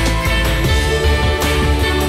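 Background music with sustained instrumental tones over a heavy bass and a steady beat.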